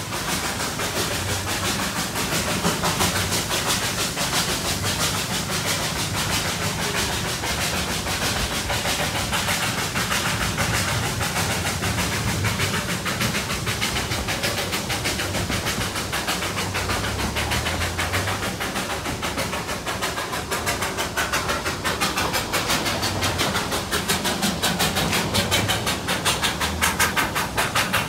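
Darjeeling Himalayan Railway steam locomotive working hard with a heavy three-coach train: a rapid, even beat of exhaust chuffs over steam hiss, with a rumble of wheels on rails underneath.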